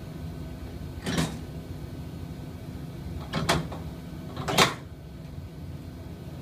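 Three short, rough swishes of a gloved hand and rag wiping inside a metal mixing bowl, over a steady low machine hum.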